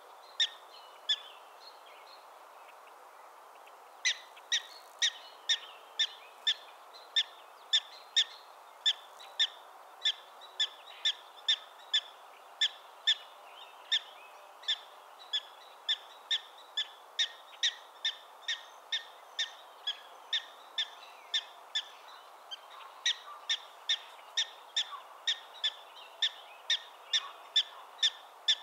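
Black-tailed prairie dog giving its repeated alarm bark: short, high chirps at about two a second, with a pause of a few seconds near the start, over a steady background hiss.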